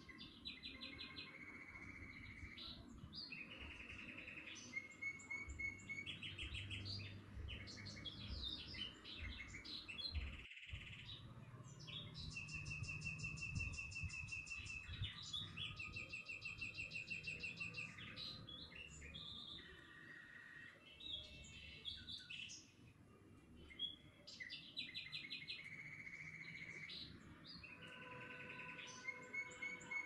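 Several small birds chirping and singing together, with rapid repeated notes and trills overlapping throughout, over faint low background noise. The sound drops out completely for a split second about ten and a half seconds in.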